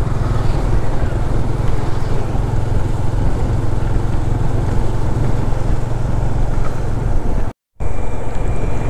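Motorcycle cruising at speed: wind rushing over the microphone over the steady low drone of the bike's engine and tyres. The sound drops out completely for a moment near the end.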